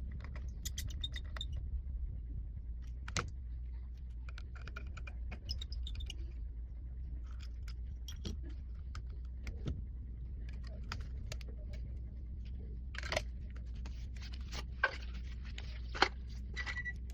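Small tools and phone parts clicking, tapping and scraping during a phone screen repair, with a few sharper clicks, over a steady low hum.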